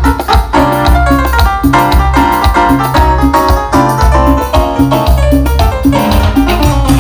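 Live cumbia band playing an instrumental passage: an electronic keyboard plays a quick repeating riff over a pulsing bass line and drums.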